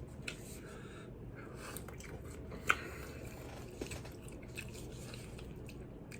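A person chewing food close to the microphone: quiet mouth sounds with scattered small clicks, and one sharper click about two and a half seconds in.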